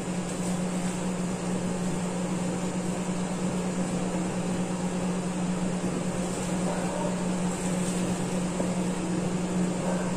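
Steady low machine hum over an even background hiss, as from a running fan or appliance.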